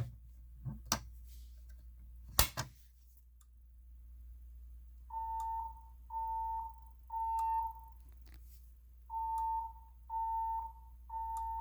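A fire alarm pull station clacks as it is pulled, about one and two and a half seconds in. A few seconds later a fire alarm tone starts beeping in the temporal-three evacuation pattern: three beeps, a pause, three more.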